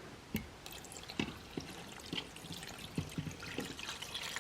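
Water poured from a jar into an Instant Pot over dry spaghetti, a faint trickle with several short splashes.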